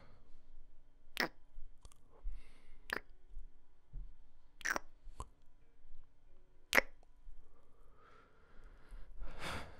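Close-miked kissing: five wet lip smacks spaced a second or two apart, with soft breaths between them.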